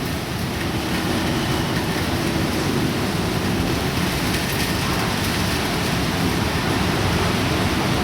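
Typhoon wind and rain making a steady, heavy rushing noise, slowly growing a little louder.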